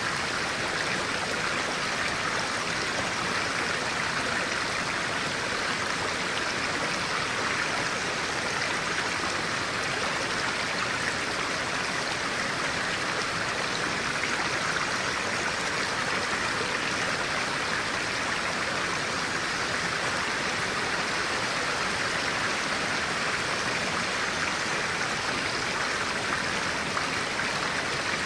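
Clear stream flowing, a steady rushing and babbling of water.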